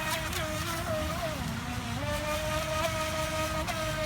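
Electric motor of a radio-controlled speedboat whining at a steady high pitch. The pitch sags for about half a second and then climbs back as the throttle is eased and opened again, with smaller dips near the start and end.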